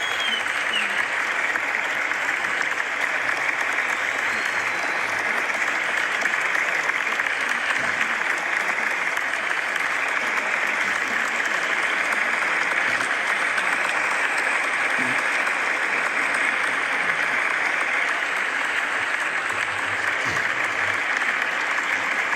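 A large crowd applauding, dense and steady with no rise or fall.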